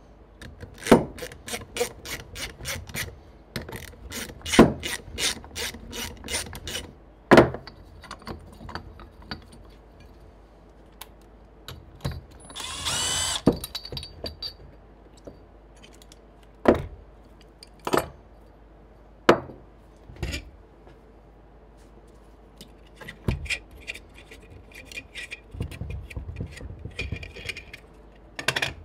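Ratchet wrench clicking quickly, about five clicks a second, as bolts are undone to remove an ARB air compressor. About halfway there is a short noisy burst, followed by a few separate sharp knocks of tools and metal parts and more clicking near the end.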